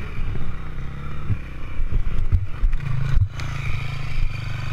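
Dirt bike engine running, broken by several knocks and scraping clatter as the motorcycle goes down in the dirt. The loudest knock comes about three seconds in, and the engine keeps running after it.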